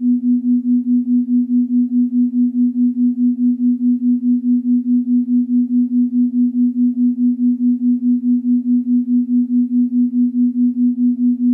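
A single steady electronic meditation tone at a low-middle pitch, pulsing evenly about four times a second.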